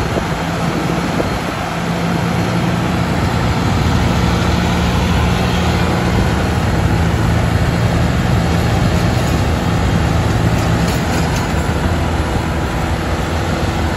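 Diesel engines of a Massey Ferguson 188 and a New Holland T480 tractor working hard under load as the two pull against each other on a chain, with tyres churning loose dirt. A steady heavy drone that grows louder about two seconds in.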